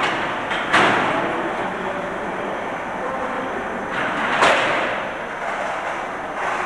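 Automatic frame-transfer machine moving loaded steel frames along their rails, a steady mechanical running noise with two sharp metallic clanks, one about a second in and one about four and a half seconds in.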